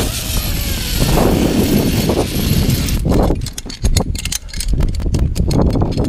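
Zip-line trolley running fast along a steel cable, with wind rushing over the microphone. About three seconds in the rush drops away and gives way to a string of irregular clicks and knocks as the trolley slows near the end of the line.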